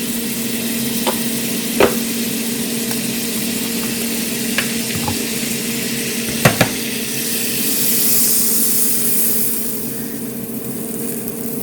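Butter melting and sizzling in a hot frying pan that bacon was fried in, with a few sharp taps of a utensil against the pan. The sizzle swells for a moment about eight seconds in, over a steady low hum.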